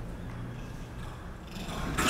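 Long-tailed macaques moving about on concrete steps, light taps and scuffs over a low background rumble. A harsh, noisy monkey cry begins near the end as two macaques square up to each other.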